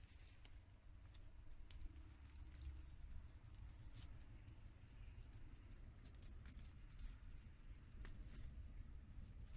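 Faint, scattered ticks and rustles of dry sticks and twigs being handled and shifted among the branches of a stick shelter.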